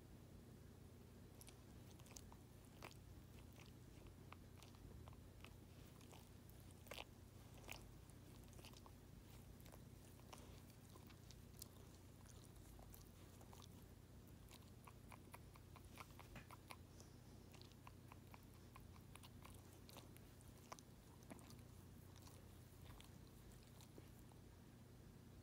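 Small dog licking and grooming its front paws: faint, wet tongue clicks and smacks, irregular throughout, over a low steady room hum.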